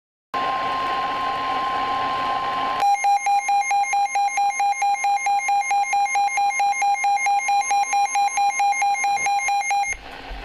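Emergency alert tones: a steady single alert tone over radio hiss, then about three seconds in a louder, harsher alarm tone pulsing rapidly, several times a second, which cuts off just before the end.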